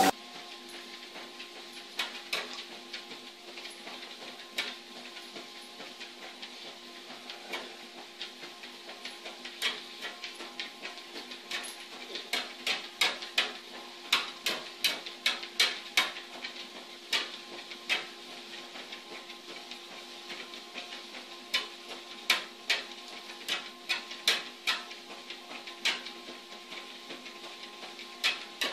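Electric treadmill running with a steady motor hum, while a dog's paws tap on the moving belt in many sharp, irregular clicks, thickest about halfway through.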